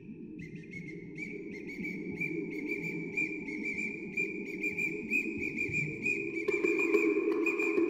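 A whistle holding one steady high note with a fluttering warble, over the low rumble of an amplified spring drum, both swelling gradually. About six and a half seconds in, a lower, louder layer joins.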